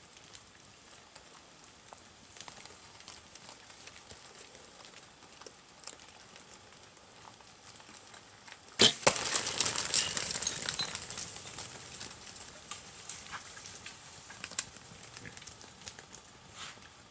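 Faint scuffling of feral hogs rooting at a feed site. About nine seconds in, a sharp crack from a Bowtech compound bow releasing its arrow, followed at once by a loud burst of crackling and scattering as the hogs bolt through brush and gravel, fading over several seconds.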